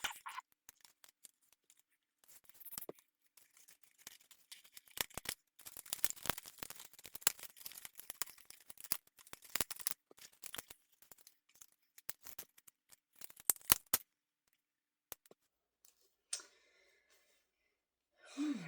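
Handling of a fashion doll and its small plastic accessories: scattered clicks, snaps and crackles of hard plastic and packaging, densest in the middle, then mostly quiet for the last few seconds.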